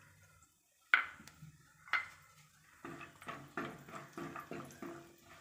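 A spoon knocking and scraping in a pan while cashews are stirred as they fry in ghee. There are two sharp clinks about a second apart, then a run of quicker strokes, about three a second.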